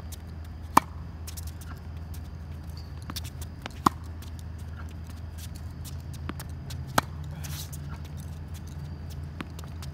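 Tennis ball struck with a racket on backhand strokes: three sharp pops about three seconds apart, with fainter clicks between them and a steady low hum underneath.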